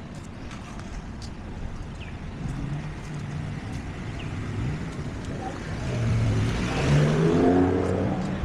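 A motor engine running, growing louder as it comes closer and passes, loudest about seven seconds in, with its pitch rising as it speeds up near the end.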